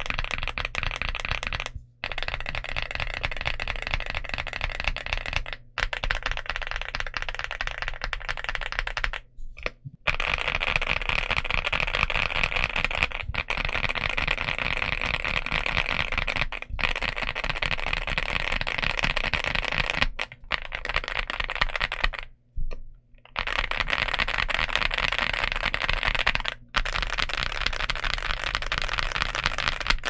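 Fast typing on a Leobog Hi98 mechanical keyboard with Leobog Barbie linear switches and PBT Cherry-profile keycaps: a dense, continuous run of keystrokes broken by several short pauses.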